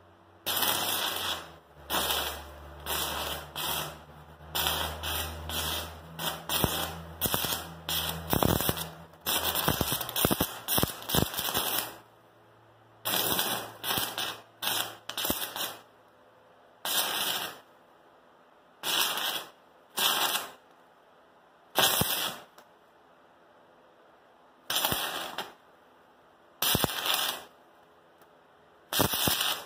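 Stick-welding arc from a 36-volt battery arc welder, crackling in bursts as the arc is struck and broken again and again. The first dozen seconds are almost continuous; after that come short separate bursts of about a second each, with quiet gaps between them.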